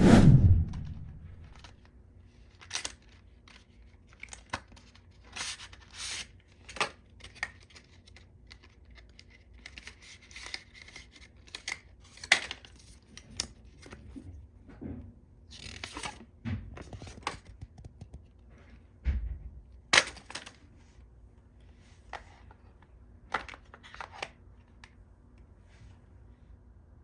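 A smartphone retail box and its packaging being opened and handled: a heavy thump right at the start, then scattered clicks, rustling and tearing of packaging.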